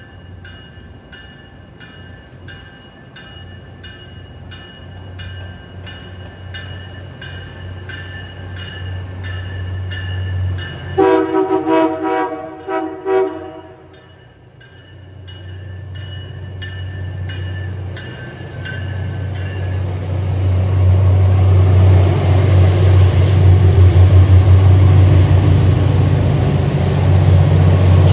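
EMD F40 diesel locomotive on a commuter train approaching, its engine hum growing louder. About eleven seconds in it sounds its horn in several short blasts over two to three seconds. From about twenty seconds it passes close, with loud diesel engine and rail noise.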